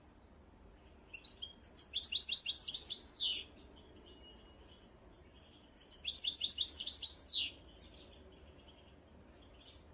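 A songbird singing two song phrases about four seconds apart, each a quick run of repeated notes that ends in a falling sweep, with fainter chirping from other birds between them.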